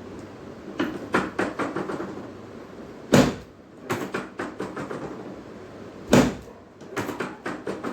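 Chiropractic adjustment with the treatment table slammed down under the patient: two heavy thumps about three seconds apart, each preceded by a run of quick clicks and knocks.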